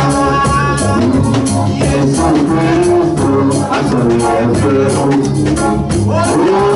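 A woman singing through a microphone over a live band of keyboard and drum kit, with a steady beat and long held notes.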